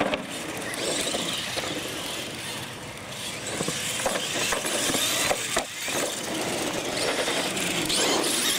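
Radio-controlled monster trucks racing on concrete: a steady mechanical whine of motors and gears with tyre noise, and a few sharp knocks around four and five and a half seconds in. It gets a little louder near the end.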